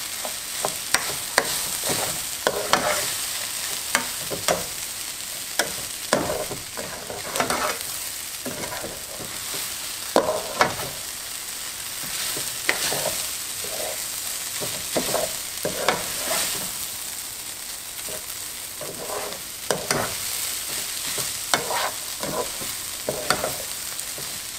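Raw rice with chopped onion and garlic sizzling in hot oil in a caldero, stirred continuously, with frequent irregular scrapes and clinks of the utensil against the pot.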